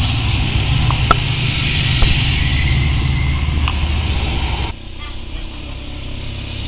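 Race team support cars driving slowly past at close range, a steady low engine hum. The sound drops abruptly about two-thirds of the way through and carries on quieter.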